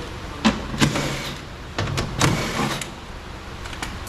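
Knocks, clicks and short scrapes of parts being handled and moved inside a car door, with four louder knocks in the first two and a half seconds.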